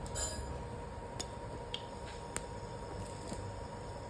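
Mustard and cumin seeds popping now and then in hot oil in a frying pan: a handful of faint, sharp, isolated pops over a low steady background.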